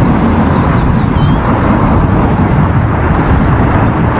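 Double-decker bus driving along a city road: steady engine and road noise.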